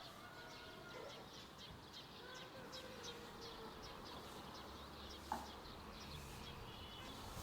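Small birds chirping faintly in short, irregular high calls, with one sharp click about five seconds in.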